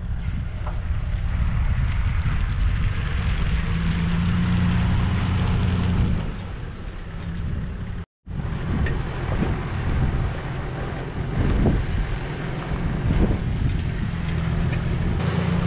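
Boat motor running steadily during a beach launch through the surf, with wind buffeting the microphone and waves washing. The sound drops out for a moment about eight seconds in.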